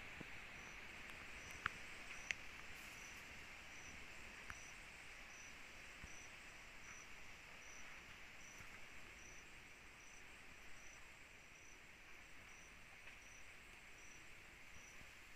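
Faint night insect chorus: a steady high trill with a single insect chirping in an even rhythm about two and a half times a second. Two brief clicks about two seconds in.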